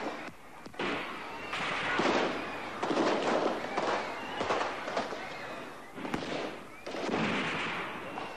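Repeated bursts of crackling gunfire with people shouting amid the noise, cutting off abruptly at the end.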